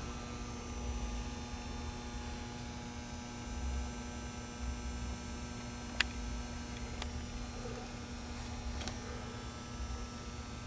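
Steady electrical-sounding hum of room tone with a low uneven rumble underneath, and two sharp clicks about a second apart just past the middle.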